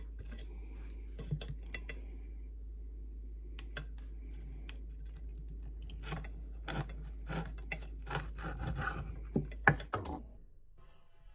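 Metal kitchen utensils clinking and scraping against cookware in a string of short strokes, over a steady low hum; it all stops about ten seconds in.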